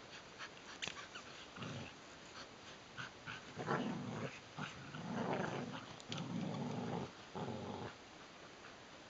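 Border collies play-growling in several rough bouts, each about half a second to a second long, as they tug on a rope toy. The growls stop near the end, and a few sharp clicks are heard in between.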